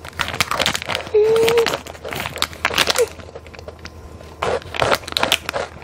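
Crunching of small chocolate biscuit sticks being chewed close to the microphone, a run of sharp crisp cracks, with a short hummed "mm" about a second in.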